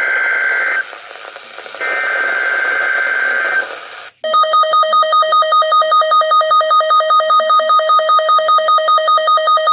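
Emergency Alert System header, received over the radio: harsh two-tone digital data bursts, one ending just under a second in and another from about two to three and a half seconds in. After a brief dropout just past four seconds, the loud alert attention tone starts, a steady tone pulsing about four times a second, announcing an emergency message.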